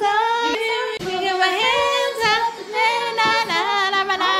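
A high female voice singing without accompaniment, holding long notes and sliding between them.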